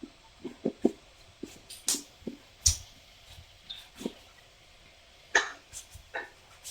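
Knife paring the skin off a green papaya: a dozen or so short, uneven strokes.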